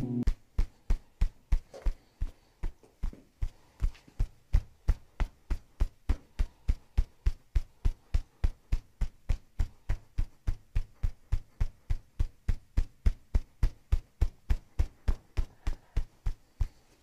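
Percussive massage on a person's back: a steady run of short, dull thumps at about three to four a second, some strikes louder than others.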